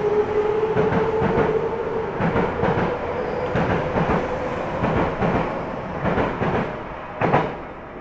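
Tokyo Metro 05 series electric train pulling out of the station: the motor whine rises slowly in pitch over a regular clicking of wheels on rail joints. A sharp clack comes near the end, and then the noise fades as the train leaves.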